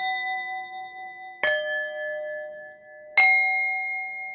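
Meditation background music of struck bell-like chime tones: three strikes, a new one about every one and a half seconds, each ringing on and fading slowly.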